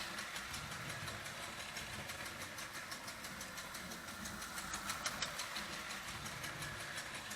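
Marx O27 toy steam locomotive running on its track. Its chug-chug sound unit, a metal tab that the connecting rod pushes against a diaphragm, makes a rapid, steady ticking chug over the hum of the running motor.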